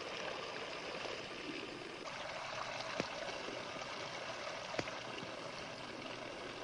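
Water falling in steady streams of drops, heard as an even hiss, with two faint clicks about two seconds apart.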